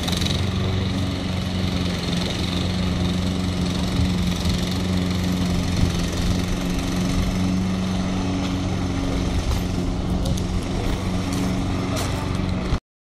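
Walk-behind petrol rotary lawn mower running at a steady, even engine note as it is pushed across the grass, cutting off abruptly near the end.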